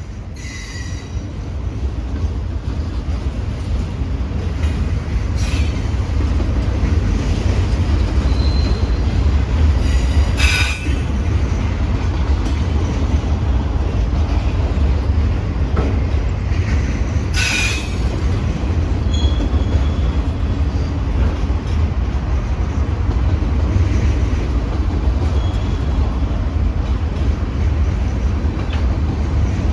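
Train cars rolling past: a steady, heavy rumble of wheels on rail that builds over the first several seconds. Several short, high wheel squeals and two sharp metallic clanks come about ten and seventeen seconds in.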